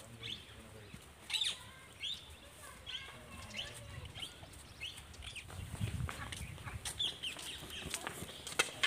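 Birds calling: a string of short, repeated chirps, roughly one a second.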